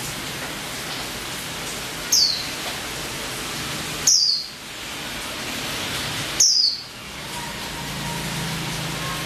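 Female white-eye (pleci) giving three short chirps, each falling in pitch, about two seconds apart, over a steady loud hiss.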